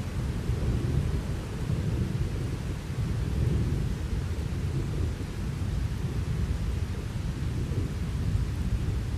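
Thunderstorm: a low, continuous rumble of thunder over the steady hiss of rain.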